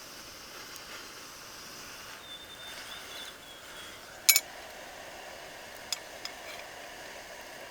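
Steady outdoor hiss, with a short high chirp about two and a half seconds in and a sharp double click a little after four seconds, after which a lower rushing sound joins the hiss; two faint clicks follow.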